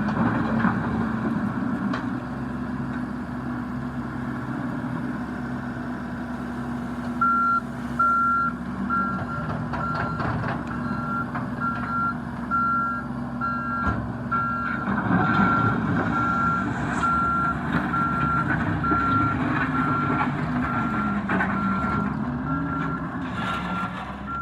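John Deere 333E skid steer's diesel engine running, with its backup alarm starting about seven seconds in and beeping evenly a bit more than once a second. The engine grows louder and busier about halfway through.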